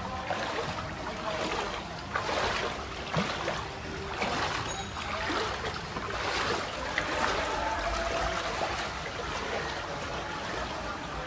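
Heavy rain and water splashing in a flooded street, with swishing surges of splashing about once a second.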